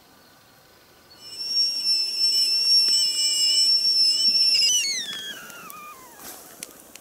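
Whistling kettle at the boil: a loud, steady high whistle that, about five seconds in, slides down in pitch and dies away.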